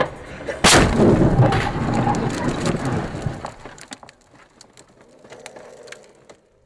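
Car collision heard from inside the car carrying the dashcam: a single loud crash about half a second in, then crunching and rattling for about three seconds, dying away to faint rattles.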